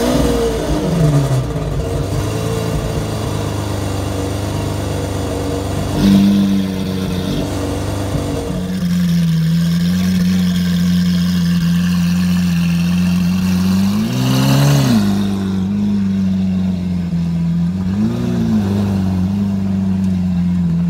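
Lamborghini Aventador's 6.5-litre V12 starting up with a loud flare that falls away over a couple of seconds into a steady idle, with a short throttle blip about six seconds in. Then an Aventador V12 idles steadily and is revved briefly twice, about halfway through and again near the end.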